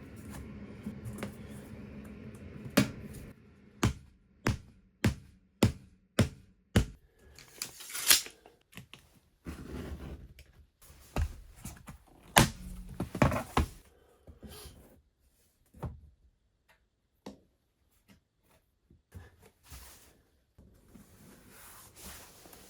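A series of sharp knocks, about two a second for a few seconds, then a short hissing rush and scattered knocks and rustles of hands-on work.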